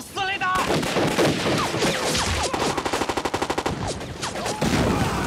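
Heavy battle gunfire: a man's shout at the very start, then dense shots with a rapid machine-gun burst of about a dozen rounds a second around the middle.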